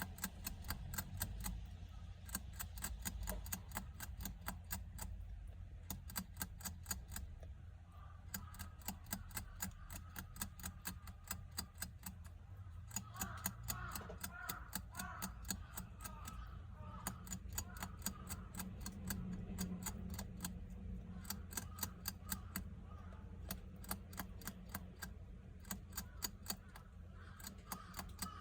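Hamster drinking from a water bottle's metal sipper tube: a rapid, regular ticking of licks on the nozzle, about four a second. Crows caw faintly in the background around the middle.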